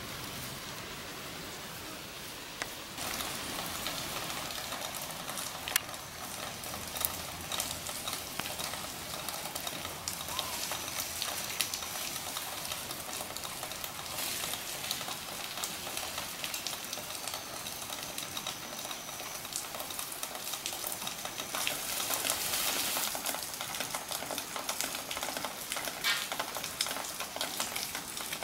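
Light drizzle pattering on wet foliage: a steady fine crackle with scattered small clicks and leaf rustles, a little louder about three-quarters of the way through.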